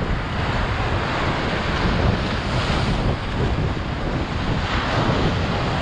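Sea waves breaking and washing over shoreline rocks, with wind buffeting the microphone as a steady low rumble.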